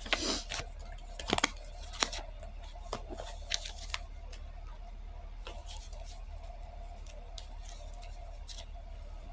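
A short rustle, then a handful of light clicks and taps over the next few seconds, over a steady low electrical hum.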